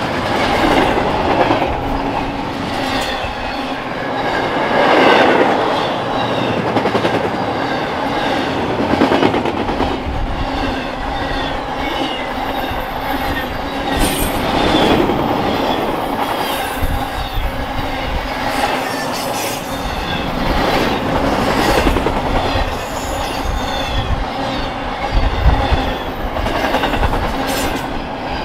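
Long freight train rolling past at close range, its cars' wheels clicking over rail joints with steady rumbling and some wheel squeal.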